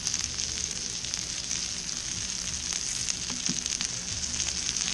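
Spice-coated mahi mahi fillets frying in olive oil on an electric griddle set to 350 °F: a steady sizzling hiss dotted with many small crackles.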